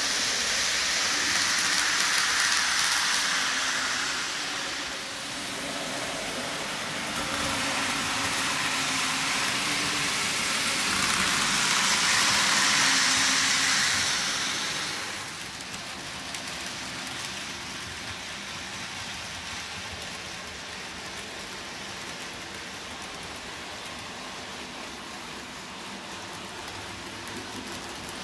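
N gauge model trains running on the track: a steady rattling hiss of small wheels on the rails with a low motor hum. It is louder for the first few seconds and again about midway as a train passes close, then settles quieter.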